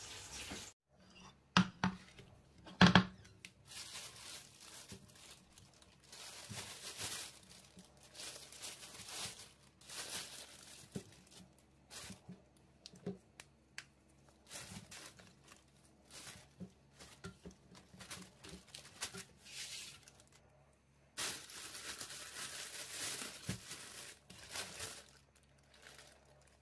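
Clear plastic bag crinkling and rustling in bursts as samosas are packed into it by hand, with a longer stretch of rustling near the end. A few sharp knocks come about two to three seconds in, the loudest of them near three seconds.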